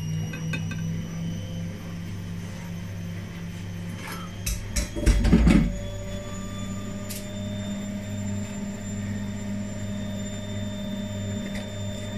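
Steady low hum, with a quick run of clicks about four and a half seconds in and a heavy thump just after, and a single click about two seconds later.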